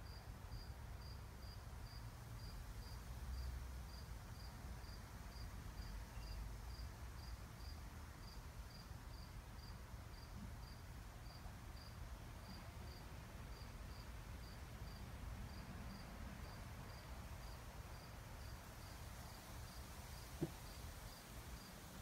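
A cricket chirping steadily, a little over two short, high chirps a second, faint over low wind noise on the microphone. A single click comes near the end.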